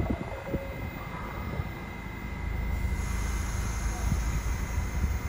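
R68 subway train standing at the platform after its doors close, then starting to pull out: a low rumble builds from about halfway through, over a steady high whine.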